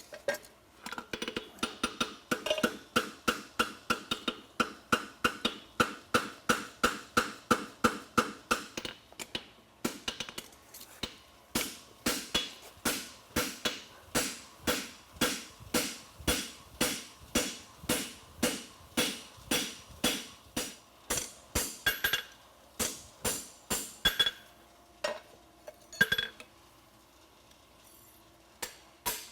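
Farrier's hammer striking a horseshoe on an anvil, about two ringing blows a second, shaping a double-caulked hind shoe and knocking scale loose. After about 22 seconds the blows thin out to a few spaced strikes, then stop near the end.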